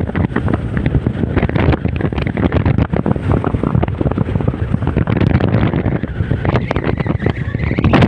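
Strong, gusty wind buffeting the microphone in a loud, irregular rumble, over the wash of large waves on a lake.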